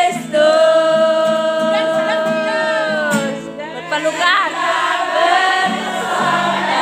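A group of women singing to a strummed acoustic guitar, with one long held note in the first three seconds.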